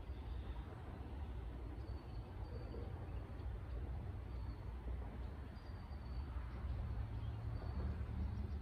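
Lakeside outdoor ambience: a steady low rumble under a soft, even hiss, with faint short high chirps every second or two.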